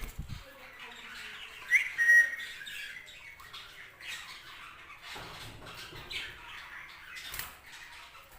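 Budgies chirping and chattering, with a louder sharp call about two seconds in.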